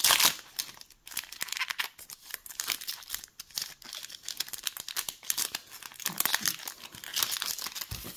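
Foil trading card pack wrappers crinkling and tearing as they are ripped open and crumpled by hand: a dense run of sharp, papery crackles, loudest at the very start and again near the end.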